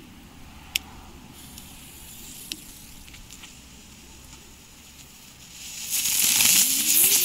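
A firework ground spinner lights about six seconds in with a loud fizzing hiss that swells quickly, and a low whirring tone glides upward as it spins up. Before that there is only a faint background with two sharp clicks.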